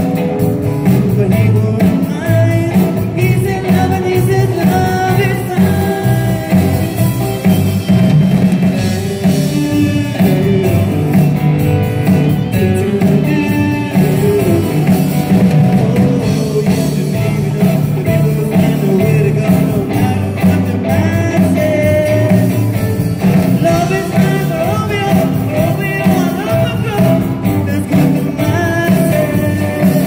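Live rock band playing a song, with electric guitars, bass, drums and keyboard under a sung lead vocal.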